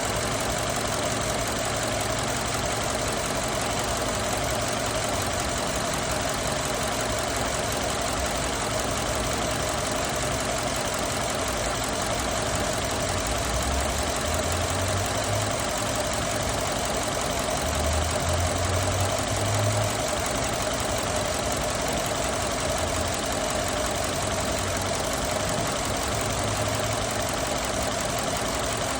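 Ford F-150 engine idling steadily, with a low rumble that swells and falls unevenly partway through.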